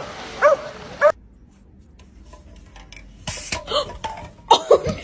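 A dog barking, two barks about half a second apart in the first second, which then cut off abruptly. Near the end, a person's voice comes in.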